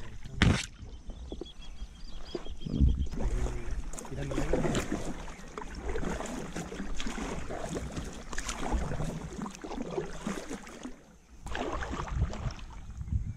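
Kayak being paddled: the paddle blades splash and drip in the water with uneven knocks and rustles, and leafy branches scrape over the boat at the start. A sharp knock stands out about half a second in.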